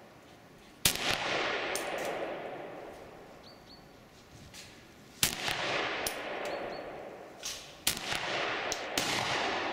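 Dragunov SVD semi-automatic rifle firing 7.62×54mmR, single aimed shots: three sharp cracks about four and then three seconds apart, each trailing a long echo that dies away over a couple of seconds. A fourth shot comes right at the end, and light metallic tinks sound between the shots.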